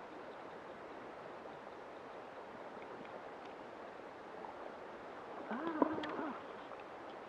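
Steady rushing of a fast river current. About five and a half seconds in, a brief wavering pitched sound with a sharp click in the middle rises above the water.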